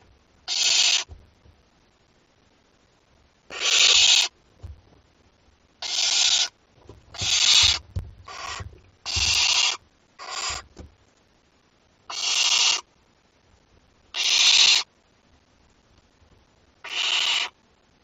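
Barn owl chicks giving their hissing 'snore' calls: about ten harsh, breathy hisses of half a second to a second each, coming at irregular intervals, the owlets' food-begging call. Faint low knocks of the chicks shifting on the wood chips lie underneath.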